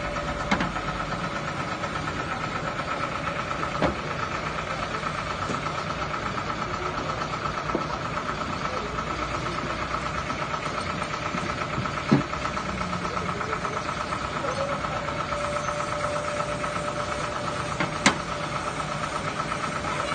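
Kia Bongo 3 truck engine idling steadily with a fast, even ticking, the noise the owner puts down to a valve lifter. A few sharper clicks stand out through it.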